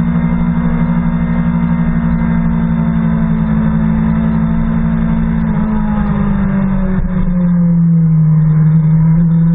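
BMW S1000RR's inline-four engine running at a steady note through a corner. The pitch drops about halfway through and again near the end as the bike slows, then lifts slightly and grows a little louder.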